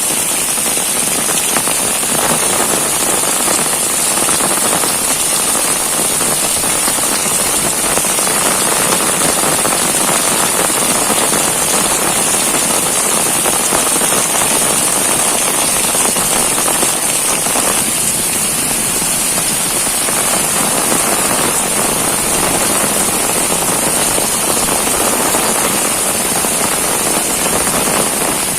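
Heavy rain pouring steadily, a dense even hiss of rainfall on surfaces.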